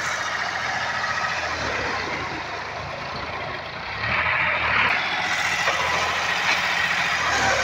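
Sonalika tractor's diesel engine running under load while it pulls a rotary tiller through a flooded, muddy paddy field. The sound is steady and gets louder about four seconds in as the tractor comes closer.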